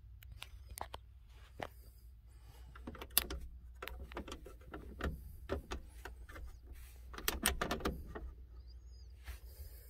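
Handling noise from someone moving about inside a truck's cab with a handheld camera: rustling, light clicks and knocks, the sharpest about three seconds in and a burst of rustling around seven to eight seconds, over a low steady hum. A short high chirp comes near the end.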